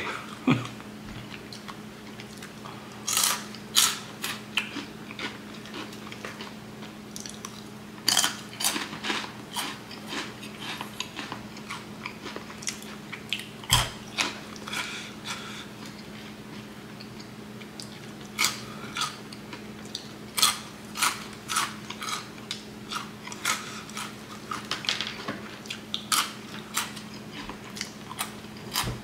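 Crunchy Flamin' Hot Cheetos being bitten and chewed close to the microphone: irregular clusters of sharp crunches with pauses between mouthfuls, over a low steady hum.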